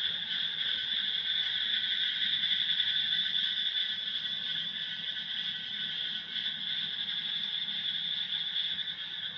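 Steady, unbroken high-pitched chorus of calling frogs and insects in the background.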